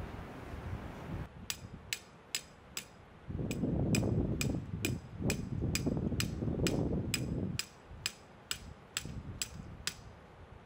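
A hammer striking metal in a steady rhythm, about two and a half sharp, ringing blows a second, of the kind made when driving tent pegs. A low rumble of wind swells under the blows in the middle.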